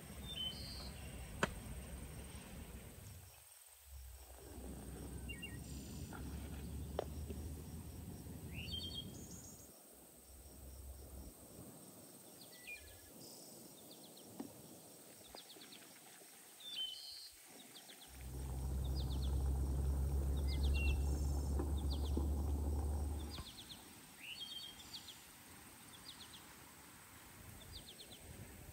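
Small birds chirping at intervals, short repeated calls, over a steady thin high tone. A low rumble comes and goes and is loudest for about five seconds past the middle.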